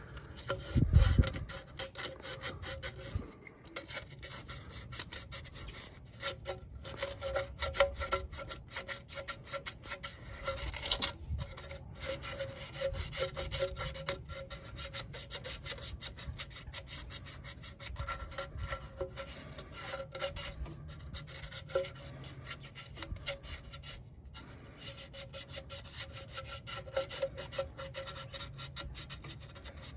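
Hand sanding or scraping: rapid, irregular rubbing and rasping strokes, typical of cleaning up a gasket mating surface with sandpaper.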